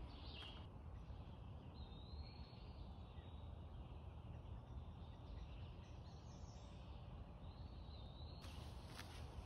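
Quiet woodland ambience: faint bird song over a steady low rumble. About a second before the end, footsteps crunch on a gravel path.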